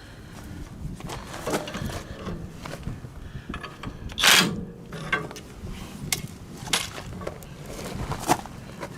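Ratchet wrench clicking with metal tools clinking as the castle nut on a brush cutter blade bolt is tightened, with irregular clicks and one louder rasp about four seconds in.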